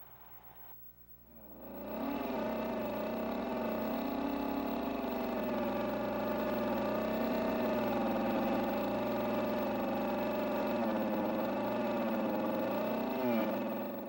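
Power tool motor running under load while cutting timber for the king post's seat and mortise. It spins up about a second in, runs steadily with a slightly wavering pitch, then drops in pitch and cuts off near the end.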